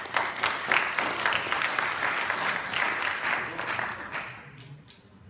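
Audience applauding, fading away about four seconds in.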